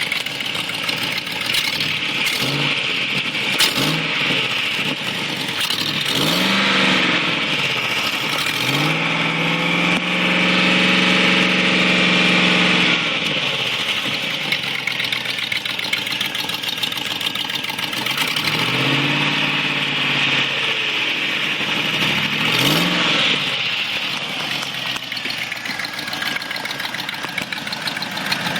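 2004 Land Rover Discovery engine running with a loud, muscle-car-like exhaust note, revved in several short blips and held at higher revs for about four seconds near the middle. The sound comes from an exhaust leak at the exhaust manifold gasket.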